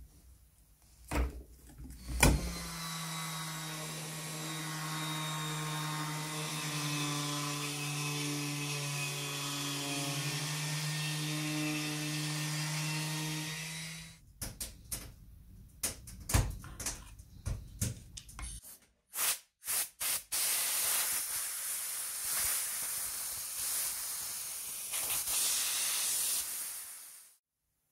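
An electric power tool motor runs steadily for about twelve seconds while the wooden rocker is worked. A few knocks and clicks follow, then a long, even hiss of air.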